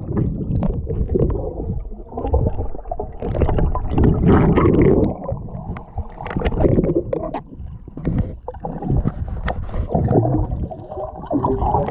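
Underwater sound through a submerged camera: a muffled, uneven rumble of moving water with bubbling and many scattered clicks and knocks.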